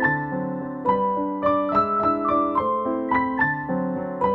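Background piano music: a gentle, steady run of struck notes and chords.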